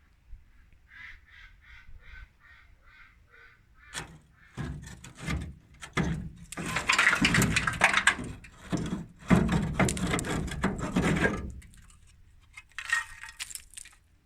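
Sheet-metal bodywork noise: a quick run of short, even ticks at about four a second, then loud clattering and rasping of metal with knocks, and a shorter high rasp near the end.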